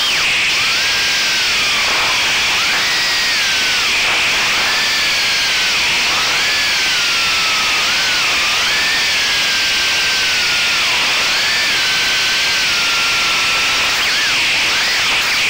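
Small FPV quadcopter's brushless motors (AKK 1407 3400kv on HQProp 3-inch props) whining over a steady hiss, the pitch sliding up and down again and again as the throttle changes.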